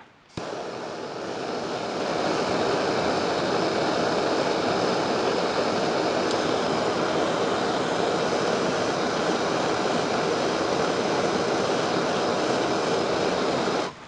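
MAPP gas hand torch burning with a steady rushing flame, used to sterilise the blades of pruning shears. It starts suddenly a moment in, grows louder over the first couple of seconds, then holds steady.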